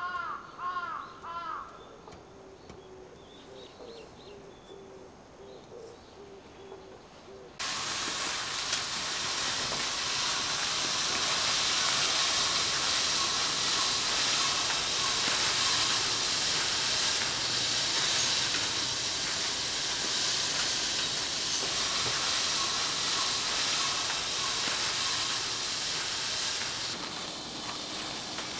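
A crow caws a few times at the start. After a sudden cut about eight seconds in comes a steady scratchy hiss: a long-handled wooden rake being drawn through the white gravel of a dry rock garden. It eases a little near the end.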